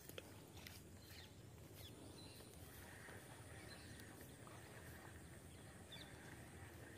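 Near silence: faint open-air marsh ambience with a few short, faint chirps and ticks.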